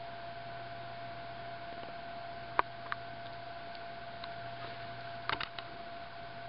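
Steady room tone: a low hum and hiss with a thin steady tone over it, broken by a few light clicks, two about two and a half seconds in and a short cluster about five seconds in.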